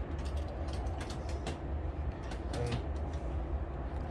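Scattered light metallic clicks and taps as a butane canister is handled and seated in a portable gas stove's canister compartment, over a steady low rumble.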